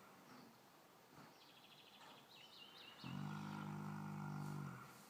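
Snoring in slow, regular breaths. A low, buzzing snore lasts about two seconds, starting about three seconds in, after a quieter gap between breaths.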